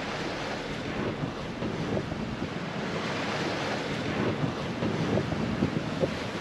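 Wind buffeting the microphone over the steady rush of waves along a sailing catamaran's hull at sea, with small irregular splashes.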